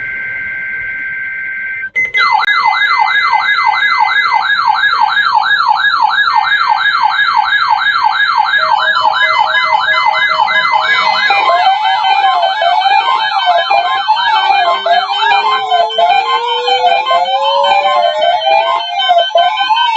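A short burst of steady data tones, in the manner of an Emergency Alert System header. It is followed by loud, layered electronic siren tones: a fast whooping sweep repeating about two or three times a second, then a second warbling tone and a slowly rising wail joining in.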